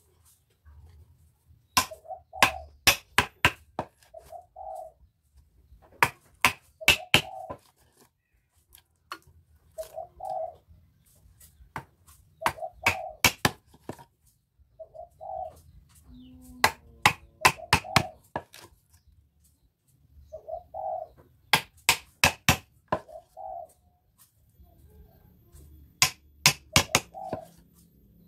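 Hand chisel being struck into teak wood with quick bursts of sharp blows, about four to six at a time every few seconds, while carving a table leg by hand. A bird calls in short notes between the bursts.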